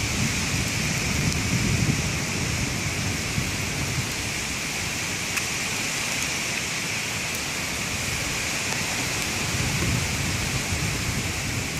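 Open wood campfire burning: a steady hiss over a low rumble, with a few faint crackles.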